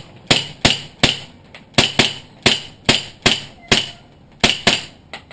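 Colt 1911 CO2 full-metal blowback airsoft pistol fired semi-automatically, a quick string of about fourteen sharp shots at an uneven pace of two to three a second, each with the clack of the metal slide cycling.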